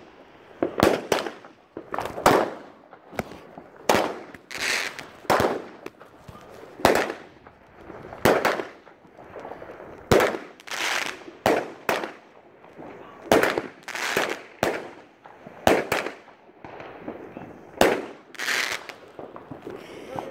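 Fireworks going off: a steady series of sharp bangs, about one a second, each trailing off in a short echo.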